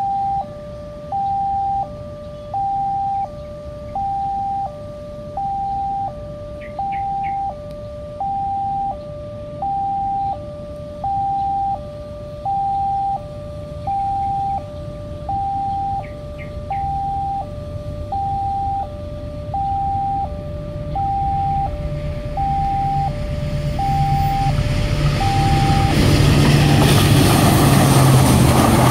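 Automatic level-crossing warning alarm, a VIALIS speaker, sounding a two-tone electronic siren that alternates a higher and a lower tone in a steady cycle. The rumble of an approaching passenger train builds over the last several seconds, and the siren falls silent near the end as the train passes.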